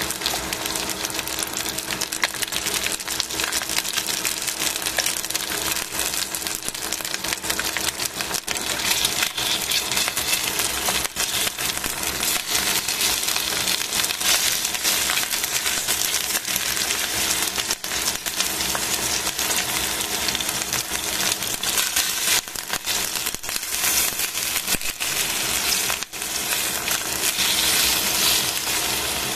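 Skin-on chicken pieces frying in hot oil in a stainless steel pan: a steady, crackling sizzle with fine spatters throughout.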